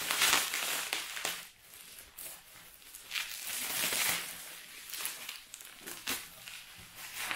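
Bubble wrap crinkling and rustling as a hard plastic case is pulled out of it, in bursts about a second long, with a few sharp clicks near the end.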